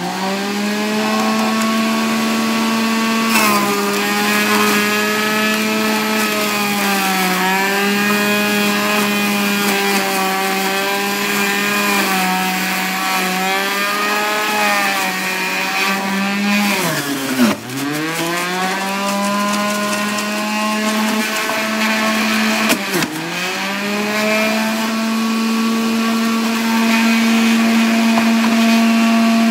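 Electric centrifugal juicer's motor running with a steady hum, its pitch sagging each time carrot pieces are pressed down the feed chute with the plunger, most deeply about two-thirds of the way through, then climbing back to speed.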